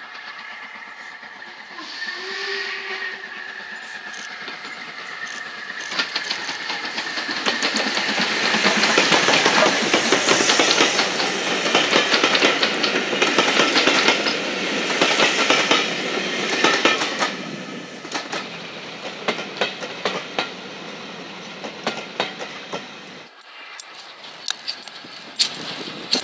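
LMS Black Five 4-6-0 steam locomotive 44871 hauling coaches past at speed. The sound swells as it approaches, with a rapid run of exhaust beats and running gear at its loudest as the engine passes. Then the coaches roll by, their wheels clicking over the rail joints.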